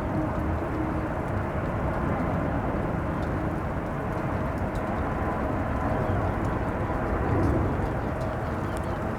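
Steady storm noise: wind rumbling on the microphone, with rain and a faint steady whine underneath.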